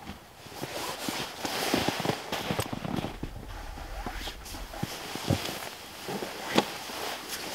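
Puffy bedding and a winter coat rustling as bedding is handled and pushed into a car, with footsteps in snow and a few sharp knocks, the loudest about six and a half seconds in.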